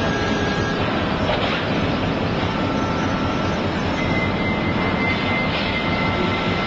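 Forklift with a coil clamp running as it drives carrying a steel coil: a steady machine noise with faint high whines coming and going over it.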